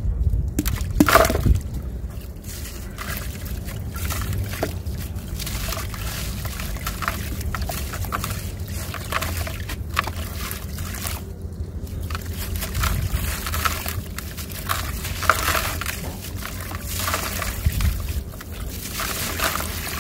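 Hands crushing a gritty ball of dried sand and soil: crackling, crunchy crumbling, with grit and crumbs trickling and splashing into a bucket of muddy water. The loudest crackles come about a second in.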